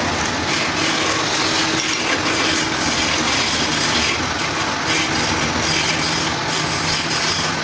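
Wood lathe running, with a cutting tool on the spinning wood making a hissing noise that swells and fades every second or so.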